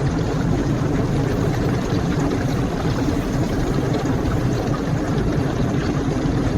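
A steady, low mechanical rumble with no breaks or changes.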